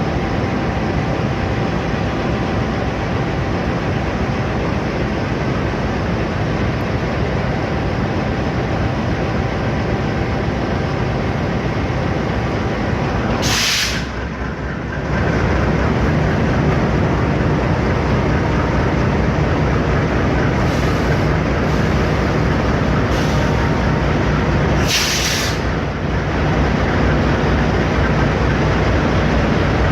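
Train running past in the rain: a steady, dense rumble and rush of wheels on rail, with two short hissing bursts, one about halfway through and one near the end.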